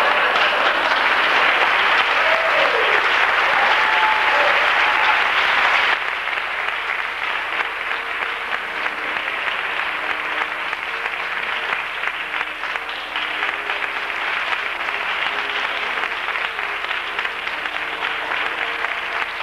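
Theatre audience applauding. The clapping is loudest for about the first six seconds, with a brief call or two from the audience, then drops suddenly to a lower, steady level.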